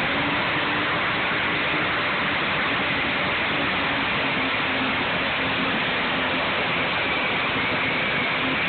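Dodge diesel pulling truck's engine running hard at a steady pitch, so loud that it overloads the phone microphone into an even, hiss-like wall of noise with no rises or falls.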